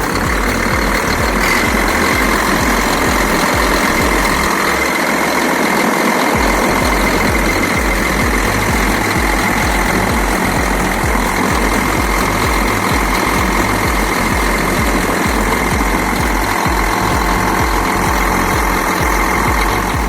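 Holmer sugar-beet harvester's MAN diesel engine running steadily at idle, its cylinder head freshly repaired.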